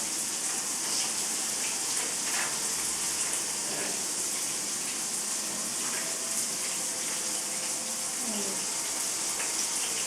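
Shower spray running steadily: an even, high hiss of falling water.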